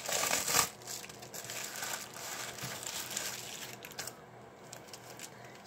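Plastic mailer bag crinkling and rustling as it is handled and opened, loudest in the first second, then fainter crinkling with small clicks as the contents are drawn out.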